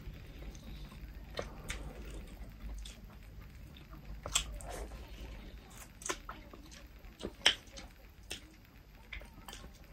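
Close-up eating sounds: chewing, lip smacks and wet mouth clicks from people eating rice and goat meat with their hands. The clicks are scattered and irregular, the sharpest about seven and a half seconds in.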